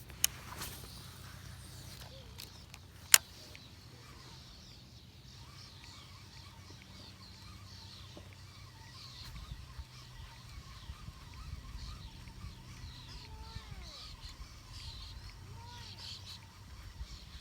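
Birds calling, with short high chirps and a few lower arching calls from about halfway on, over a low rumble. Two sharp clicks come near the start, the second, about three seconds in, the loudest sound.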